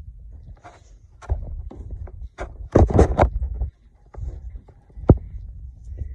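Handling noise from a phone being moved about: irregular knocks, rustles and low rumbling, with a louder scuffle about three seconds in and a sharp click near the end.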